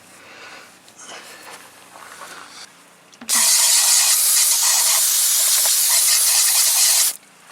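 Aerosol can of brake cleaner spraying in one continuous burst of about four seconds, a loud hiss that starts suddenly about three seconds in and cuts off abruptly.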